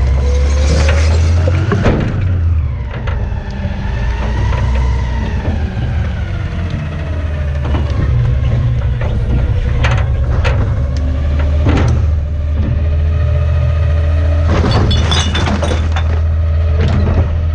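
Garbage truck's hydraulic packer compacting trash in the hopper: the engine runs under load with a whine that rises and falls in pitch, while the trash cracks and snaps as it is crushed, with a cluster of sharp cracks near the end.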